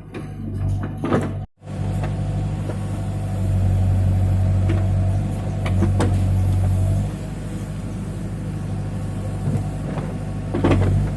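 Case 580 backhoe loader's diesel engine running steadily, louder for a few seconds in the middle, with occasional sharp knocks and clanks. The sound cuts out for an instant about a second and a half in.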